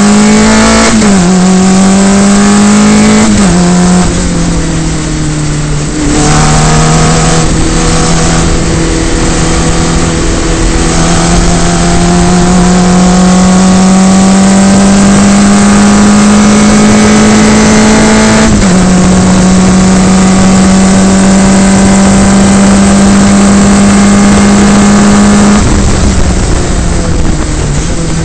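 Onboard sound of a single-seater formula racing car's engine pulling hard. Its pitch climbs steadily through each gear and drops sharply at the upshifts, about five times. The sound is loud throughout.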